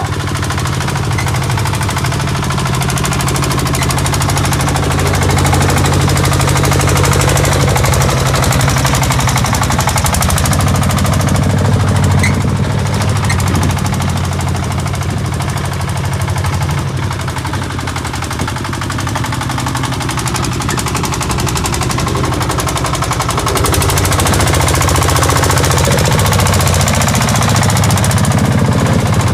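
Small diesel engine of a paddy-field boat tractor running steadily under load while it tills flooded mud, with a fast, even knocking beat.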